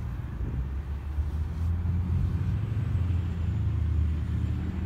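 Diesel engine of an NJ Transit coach bus running low as the bus rolls across the railroad crossing, getting louder about two seconds in.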